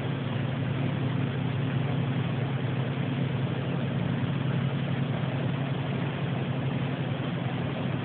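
Steady, unexplained low droning hum with a few held tones, likened to a helicopter, over an even rushing hiss of water from a canal.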